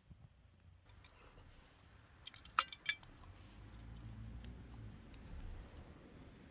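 A quick cluster of light clicks and clinks about two and a half seconds in, like small hard objects being handled, with scattered fainter ticks around it.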